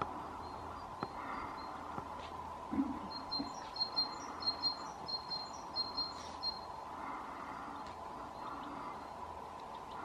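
European goldfinch calling: a quick run of short, high twittering notes lasting about three seconds in the middle, over a steady background hum.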